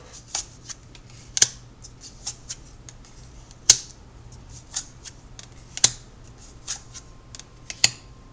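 Tarot cards being handled and laid out: irregular crisp clicks and snaps of card stock, with a louder snap every second or two and small ticks between.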